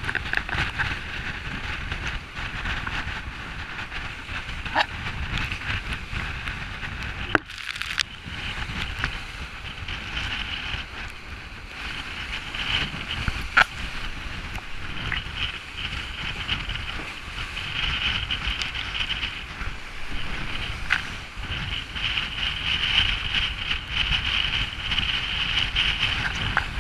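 Wind buffeting the microphone and water rushing along the hulls of a trimaran sailing at speed, a steady rushing noise with a few sharp clicks.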